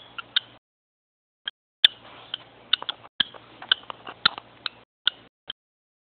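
Cockatiel clicking: a string of short, sharp clicks at an uneven pace, with a pause of about a second near the start.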